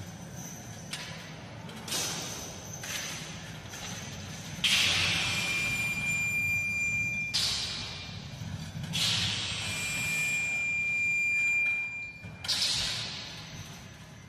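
Sparse, eerie stage-performance music in a large hall: sudden metallic strikes and swells every couple of seconds, each ringing away slowly, over a low steady hum, with a high thin tone held twice for about three seconds.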